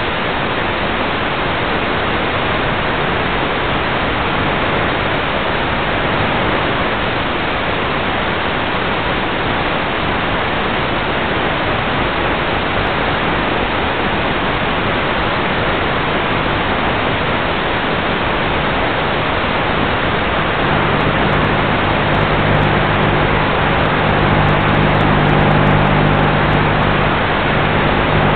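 Steady rushing hiss on the Bixler 3 foam RC plane's onboard FPV audio. About twenty seconds in, a low, even-pitched hum from its electric motor and propeller comes in on top and grows a little louder as the plane climbs under power.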